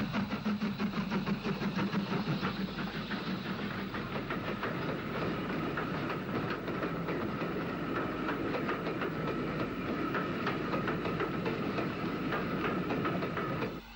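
UTA WT class 2-6-4 tank engine (a 'Jeep') running with a passenger train: a fast, rhythmic beat, strongest in the first few seconds, then settling into a steadier run.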